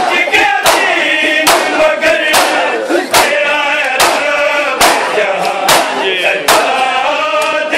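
Men's voices chanting a Punjabi noha, a Shia lament, over sharp, evenly spaced matam chest-beating slaps, a little more than one a second.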